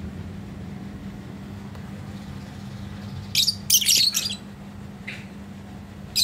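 A flock of caged lovebirds calling: about three seconds in, a second-long burst of loud, shrill, high-pitched chirps, then one softer chirp near the end. A steady low hum runs underneath.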